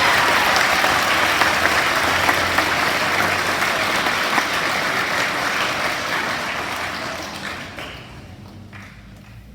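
An audience applauding in a hall, loud at first and then dying away about two seconds before the end.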